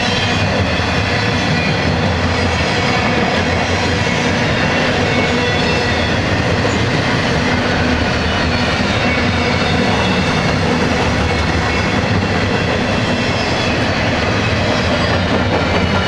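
Double-stack intermodal well cars rolling past, with a steady, loud noise of steel wheels running on the rails.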